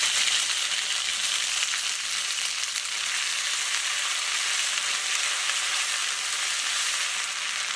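Ginger-garlic paste frying in hot mustard oil in an aluminium kadai, a steady sizzle, while a flat spatula stirs it round the pan.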